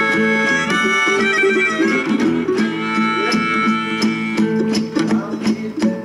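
Instrumental background music with plucked strings and a steady percussive beat.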